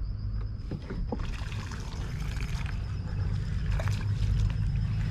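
Hooked snook splashing and thrashing at the water's surface, starting about a second in, over a steady low rumble.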